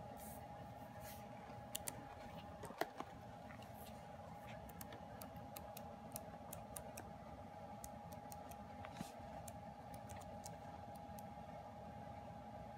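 Faint scattered clicks and light paper handling as hands hold and turn the glossy pages of a K-pop album photobook, with a few sharper clicks about two to three seconds in, over a faint steady hum.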